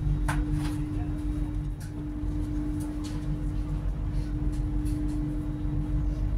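Inside a GWR Class 800 bi-mode express train: a steady low rumble under a constant hum, with a few faint clicks.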